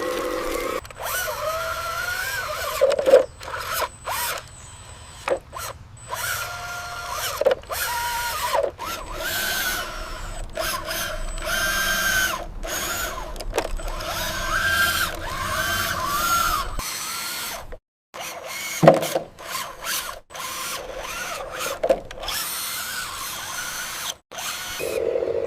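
Small electric motors of a model RC excavator whining as it works, the pitch rising, holding and falling in short stretches, with occasional sharp knocks; the sound stops and restarts abruptly many times.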